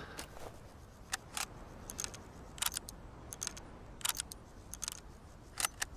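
Short, sharp metallic clicks from a Mosin-Nagant M91/30 rifle's mechanism being handled, several coming in quick pairs, spaced about half a second to a second apart.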